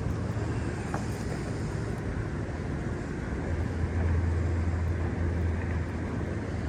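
Low steady rumble of distant motor traffic, swelling for a couple of seconds around the middle.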